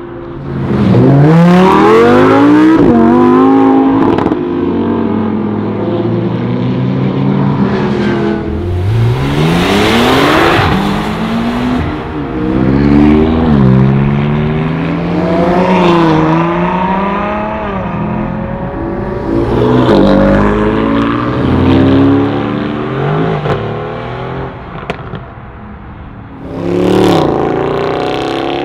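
Supercar engines accelerating hard one after another, each climbing in pitch through the revs and dropping sharply at every upshift, then running on through the next gear.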